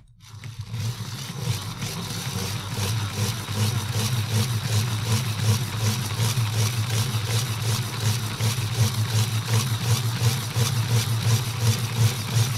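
Hand-cranked LEGO Technic gear train spinning a large tyred wheel and a LEGO motor driven as a generator: a steady whir of plastic gears with fast, even ticking, building up over the first second or so.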